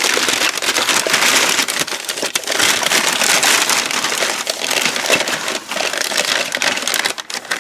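Packing paper crinkling and rustling as it is unwrapped from an item by hand, a dense run of crackles throughout.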